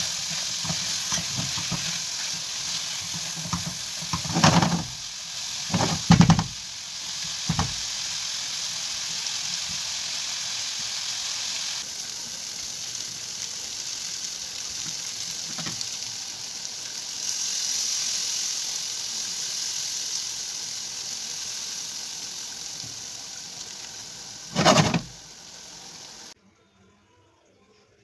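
Chicken livers and peppers sizzling as they fry in oil and ghee, stirred with a wooden spoon, with a few loud knocks. The sizzling cuts off suddenly near the end.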